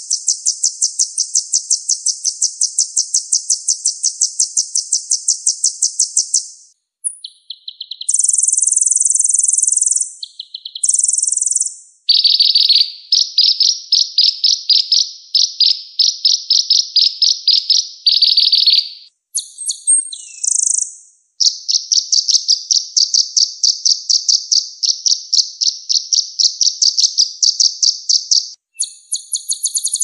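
Recorded songbird song played as a masteran training track for small birds such as sunbirds: long, very high, rapid trills of evenly repeated notes, broken by short chirped phrases. The clips are spliced together, so each phrase starts and stops abruptly, and one trill drops lower midway.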